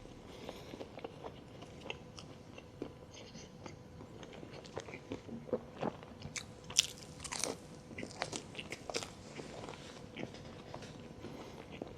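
Close-miked eating: a person chewing and biting into crunchy food in a quick, irregular run of crunches and mouth clicks, loudest about halfway through.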